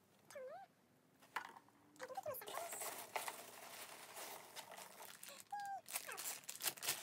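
Packing peanuts and a plastic bag rustling and crinkling as hands dig through a cardboard box, a dense crackle of many small clicks that starts about two seconds in. A short wavering pitched sound, like a brief hum, comes about half a second in.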